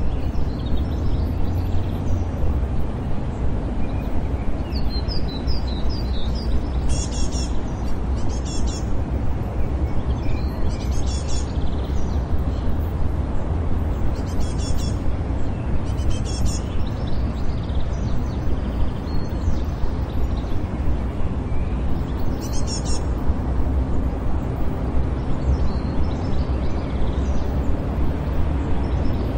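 City park ambience: a steady low rumble of distant traffic with birds chirping in short trills every few seconds, and the loudness pulsing quickly, in line with isochronic tones mixed under the recording.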